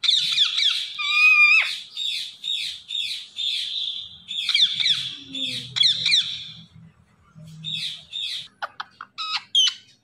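Indian ringneck parakeet calling: a rapid run of shrill, high calls that sweep in pitch, about two a second. They break off about seven seconds in, and a few short, sharp calls follow near the end.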